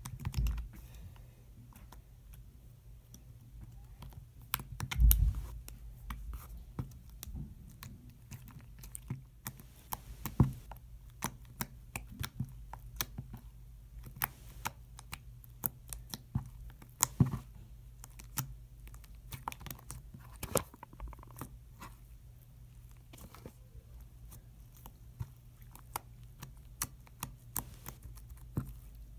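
Fluffy slime being poked and squeezed by fingers, giving irregular small wet clicks and pops, with a louder thud about five seconds in. A low steady hum runs underneath.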